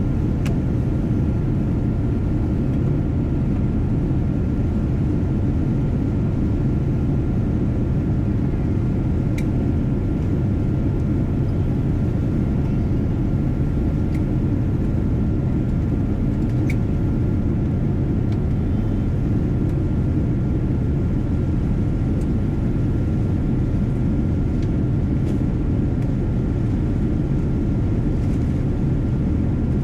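Steady low roar of a Boeing 787 Dreamliner's jet engines and airflow heard from inside the cabin, with a faint steady whine over it and a few light ticks.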